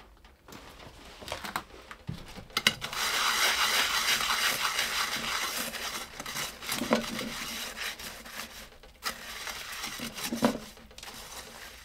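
Coarse snow being scrubbed around a cast iron pan on a wood stove with a gloved hand, crunching and rubbing against the metal. A loud steady hiss starts about three seconds in and fades over the next few seconds. A few sharp knocks come from the pan and glove.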